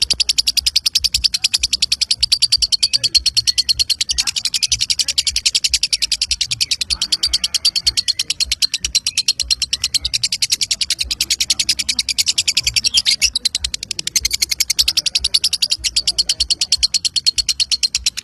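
Lovebird ngekek: one unbroken run of rapid high-pitched chirps repeating several times a second without a pause, the non-stop 'konslet' style of chattering.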